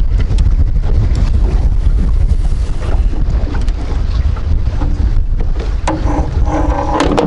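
Wind buffeting the microphone in a heavy, uneven rumble, with a few small knocks and clicks.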